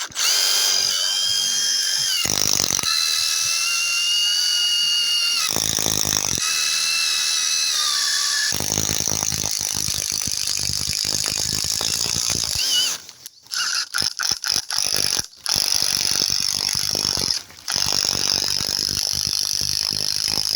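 Milwaukee M18 Fuel Gen 3 1/4-inch impact driver on speed 3, boring into a tree branch with a 22 mm spade bit. At first the motor whines at high pitch with short spells of hammering from the impact mechanism. From about nine seconds in the hammering runs almost steadily, stopping briefly a few times in the second half.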